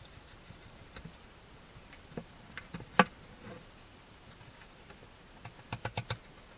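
Sharp clicks from a hedgehog close to the microphone: a few faint ones, one loud click about three seconds in, and a quick run of five near the end.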